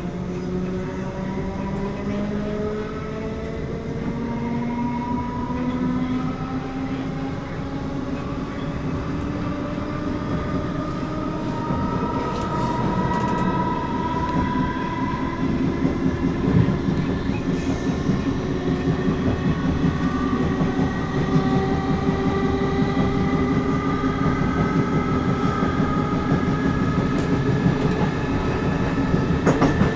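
Class 455 electric multiple unit accelerating, heard from inside the carriage: traction motor whine climbing steadily in pitch in several overlapping rising tones, over a steady wheel-and-rail rumble with clickety-clack from the rail joints. The sound grows slowly louder as the train gathers speed.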